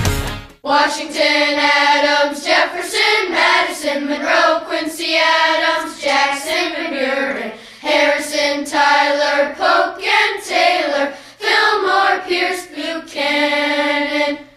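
Voices singing a sustained, slow melody in phrases, the soundtrack of a television commercial. It starts after a brief gap about half a second in.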